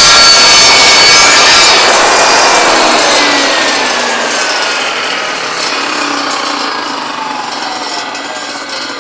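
Table saw ripping through a wood test cut, run to check that the blade is square to the table. About two seconds in it is switched off, and the blade winds down with a falling whine that fades away.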